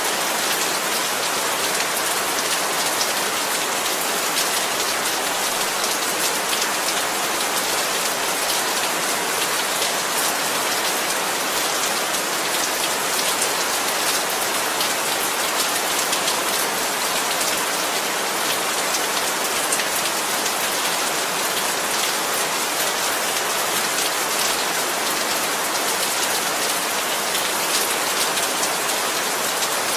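Heavy rain falling steadily, a dense even hiss of rain hitting surfaces with individual drops pattering through it.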